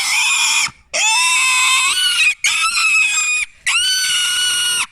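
Piglet screaming in long, loud, high-pitched squeals with short breaks between them: the distress calls of a young pig being held down to have a wire nose ring removed.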